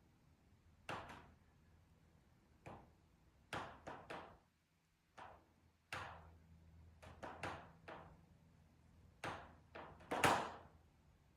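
Rivets in a steel-framed patio sunroom popping as the metal expands in direct sun: about fifteen sharp pops and ticks at uneven intervals, some in quick runs of three or four, the loudest just before the end.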